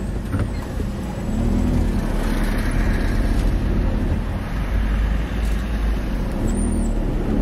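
A car driving along a street: a steady low rumble of engine and road noise, growing a little louder after about a second and a half.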